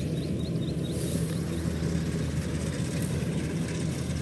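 Kubota DC93 combine harvesters' diesel engines running steadily while harvesting, a constant low drone.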